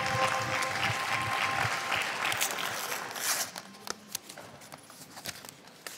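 Audience applause that dies away over about three and a half seconds, with the last held notes of the music fading under it at the start; after that, only a few faint clicks and rustles.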